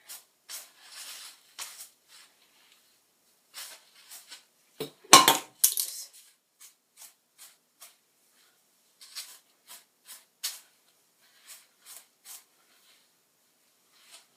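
Short, scratchy strokes of a teasing comb back-combing hair, repeating irregularly, with one louder burst of noise about five seconds in.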